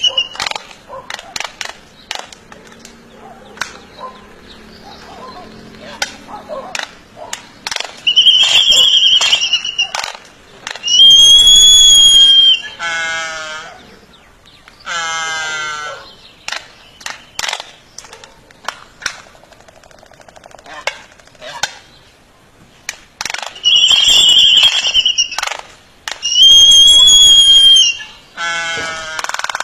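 Birds calling loudly: four drawn-out, arched high-pitched calls, each lasting about a second and a half, in two pairs, with several quicker falling, buzzy calls and scattered sharp clicks in between.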